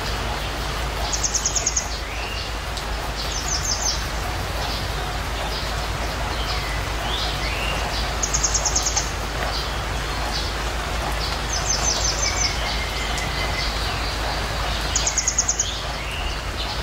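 Birds calling: one bird repeats a short, rapid high trill five times, with a few shorter sliding whistles between, over a steady background hiss.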